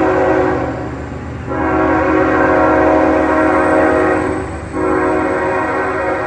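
CSX freight locomotive's air horn sounding a chord of several notes in long blasts. One blast ends just after the start, a long blast of about three seconds follows after a short gap, and another begins near the end, all over the steady low rumble of the diesel locomotives.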